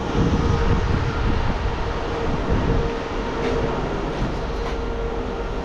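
Steady mechanical rumble with a constant hum, with a few faint light clicks about three and a half and four and a half seconds in.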